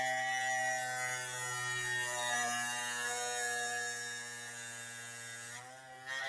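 Small pen-style Dremel rotary tool running with a fine, steady whirr while its bit grinds the plastic hand socket of an action figure wider to seat a ball peg. It winds down and stops near the end.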